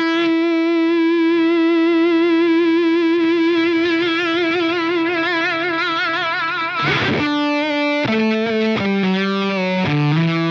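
Distorted electric guitar through a Line 6 Pod Go high-gain preset (Friedman-style Placater Dirty amp model with a fuzz pedal) holding one long note with vibrato that rings for about seven seconds, showing the preset's creamy, long sustain. Near the end a few short notes are played, then another note is held.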